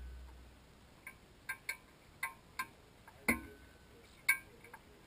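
Irregular sharp metallic clicks and ticks, about eight in five seconds, each with a brief ring; the loudest, a little past three seconds in, has a short low thud with it.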